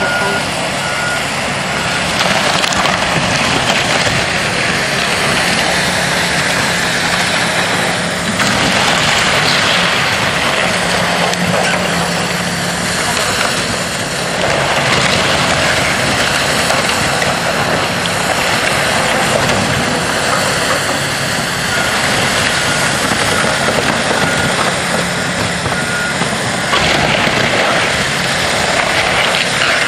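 Demolition bulldozers working: a steady diesel engine drone under a dense, loud rush of noise. A reversing alarm beeps in an even series at the start and again about 22 seconds in.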